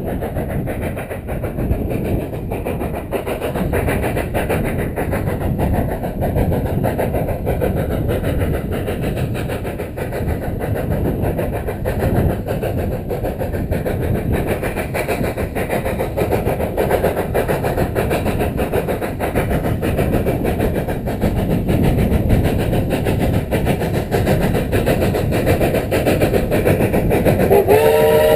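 Large-scale garden-railway model of a narrow-gauge steam locomotive running along ballasted track, heard on board: a steady rumble and rattle of wheels and running gear. Near the end a multi-tone whistle starts, sliding up briefly before holding its chord.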